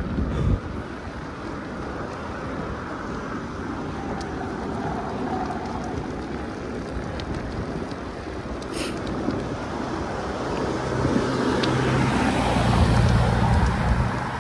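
Road bike tyres rolling on the road surface: a steady rushing noise that grows louder toward the end, with a low steady hum joining for the last few seconds.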